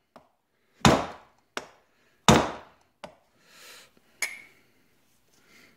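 A mallet strikes a Honda K20A2 piston, driving the wrist pin through a K20A3 connecting rod's small end. There are two firm smacks about a second apart with a lighter one between them, then a few small taps and a sharper, ringing knock about four seconds in.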